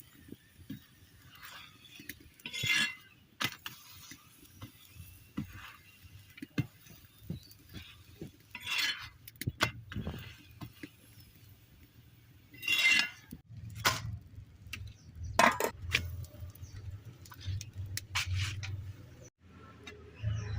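Metal cooking utensils clinking and scraping against cookware, in a scatter of small clicks and a few short, louder clatters.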